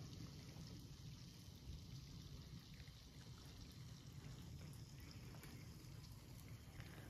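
Near silence: faint outdoor ambience, a low steady rumble with light hiss and a few soft ticks.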